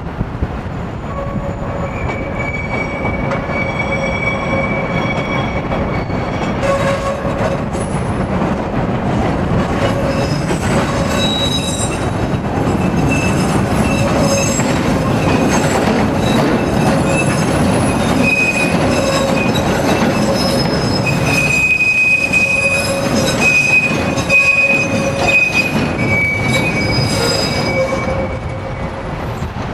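Chicago "L" rapid-transit train rounding a sharp curve on the elevated steel structure. Its wheels squeal in high steady tones that come and go over the rumble of the cars on the track.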